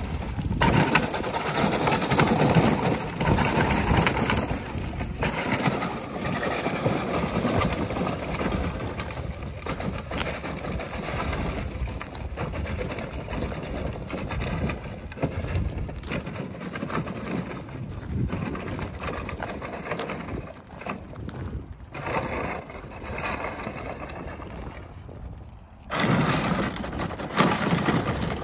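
Battery-powered ride-on toy Warthog's hard plastic wheels crunching and rattling over gravel as it drives, louder near the end.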